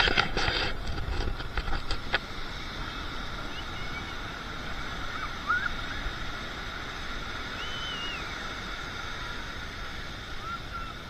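Steady wash of surf and wind on a beach, with a few brief knocks in the first couple of seconds and some faint, short high calls later on.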